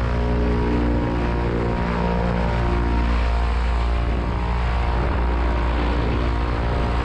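Paramotor engine and propeller running steadily at constant revs.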